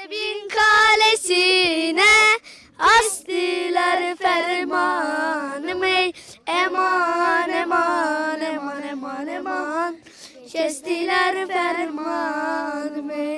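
A high voice, a woman's or a child's, singing a slow melody with no instruments, holding wavering notes in phrases broken by short pauses.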